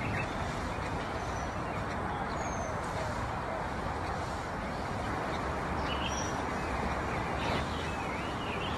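Steady outdoor background hubbub, a low murmur of distant voices, with a few short high chirps in the second half.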